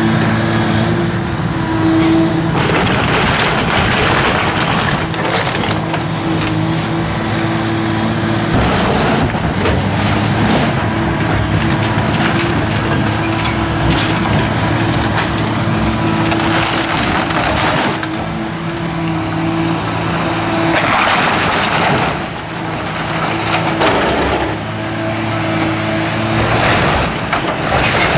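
Hydraulic excavator's diesel engine running steadily under load, with several spells of timber cracking and roofing crunching as the machine tears down a barn roof.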